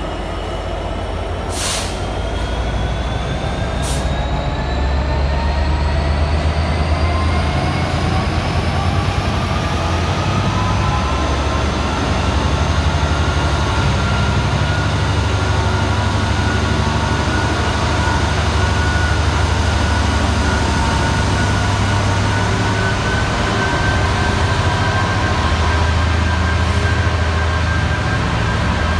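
Class 66 diesel-electric locomotive's two-stroke V12 engine running under power as it pulls a freight train away, a heavy low rumble with a whine that rises over the first ten seconds or so and then holds steady. Two sharp knocks come in the first few seconds.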